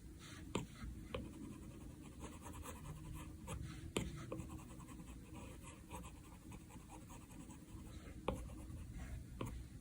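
Stylus tapping and stroking on an iPad's glass screen while drawing: faint scattered ticks with light scratching, the clearest tick about four seconds in and a few more near the end.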